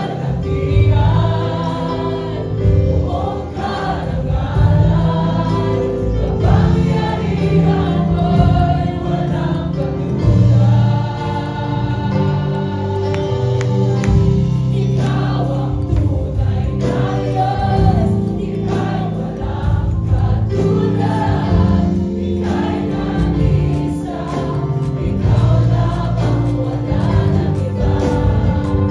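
A Tagalog worship song performed live. A woman sings the lead into a microphone over sustained instrumental backing, and many voices sing along.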